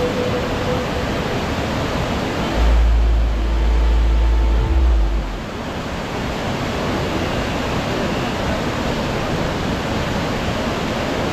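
Kjosfossen waterfall's steady rush of falling water. About two and a half seconds in, a deep rumble on the microphone swells up for nearly three seconds, then drops away.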